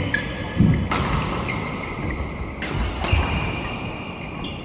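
Badminton rally: two sharp racket strikes on the shuttlecock about a second and a half apart, with shoes squeaking and feet thudding on the court floor between them.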